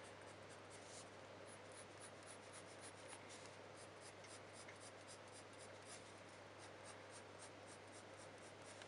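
Coloured pencil scratching faintly on heavy hot-pressed paper in a quick, even run of short strokes, several a second, as warm grey fur is laid in.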